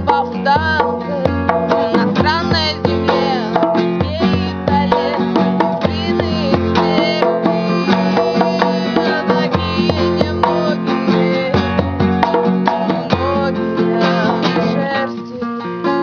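Acoustic guitar strummed with a hand drum keeping a regular beat and a voice singing with vibrato: a live acoustic band performance.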